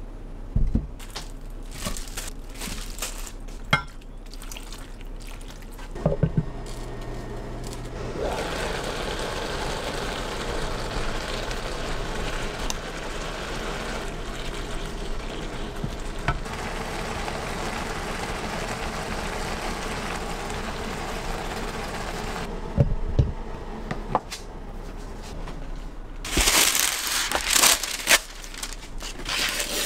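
A few clinks of a ladle against a ceramic bowl as soup is served. Then a steady sizzle of sliced vegetables and minced garlic stir-frying in a pan for about fifteen seconds. Near the end comes loud crinkling of a sheet of parchment paper being pulled out and handled.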